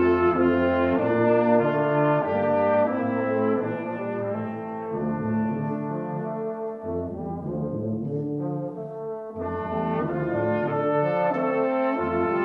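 Brass ensemble playing held chords over a moving bass line.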